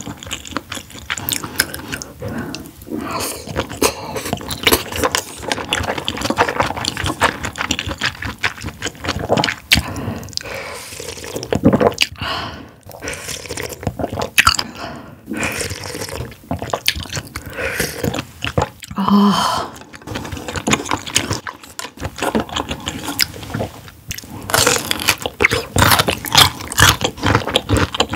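Close-miked eating sounds of a person chewing soft squid intestines and side dishes: a dense run of wet, irregular chewing and biting noises mixed with crunching bites.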